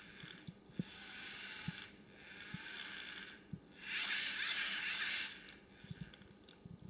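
LEGO Mindstorms NXT geared servo motors whirring in four short bursts, the last the longest and loudest, as the remote-controlled car is driven in brief spurts, with light knocks between.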